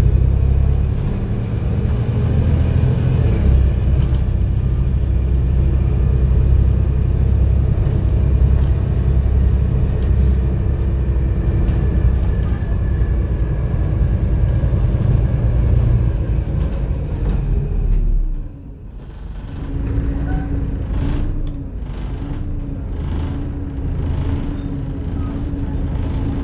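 Volvo B7TL double-decker bus's six-cylinder diesel heard from the upper deck, droning steadily as the bus drives. About two-thirds of the way through the engine note falls away as the bus slows. It leaves a steady, slightly wavering whine of the engine cooling fan, with a few short high squeaks.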